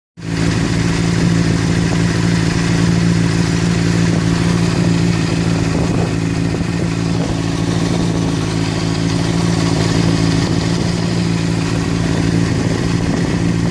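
2006 Honda CBR600RR's inline-four engine running steadily at idle, with a clicking noise that the owner hears and cannot account for.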